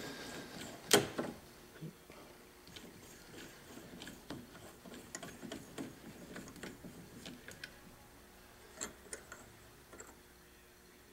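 Collet being unscrewed by hand from the locked spindle nose of a stopped Hardinge lathe: faint, irregular metallic clicks and scrapes, with one sharp clack about a second in.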